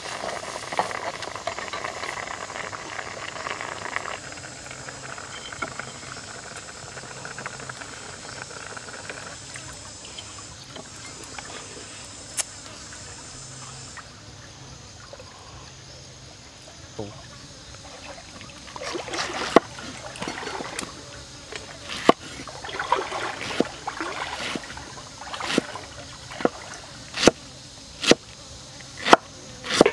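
Fish simmering in an iron pan over a wood fire, the liquid bubbling, for the first few seconds before it fades out. Later a knife chops pineapple on a wooden cutting board: sharp knocks, roughly one a second in the last several seconds.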